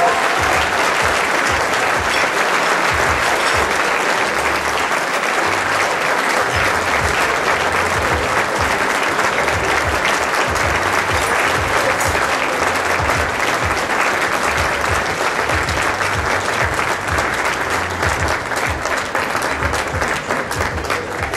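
Large audience applauding steadily, the clapping starting to die down near the end.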